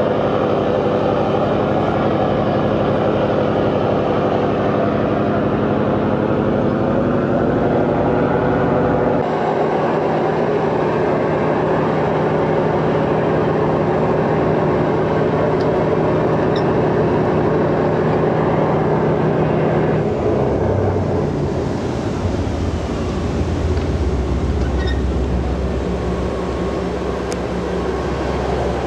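Fishing vessel's diesel engines running steadily, a loud low drone. The tone changes abruptly about nine seconds in and shifts lower again around twenty seconds in.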